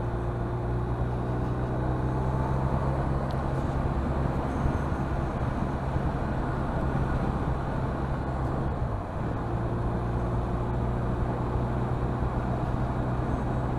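BMW R 1250 RT's boxer-twin engine running steadily under way. Its note dips briefly about nine seconds in, then settles again.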